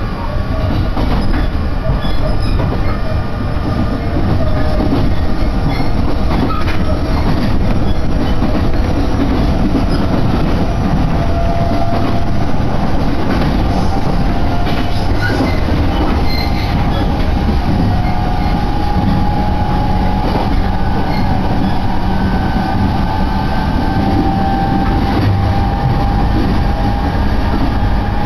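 Electric train running, heard from inside the passenger car: a steady low rumble with a faint whine that slowly rises in pitch and a few scattered clicks.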